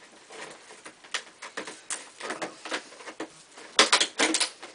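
Scissors cutting open a cardboard box: a run of irregular short snips and scrapes, densest and loudest near the end.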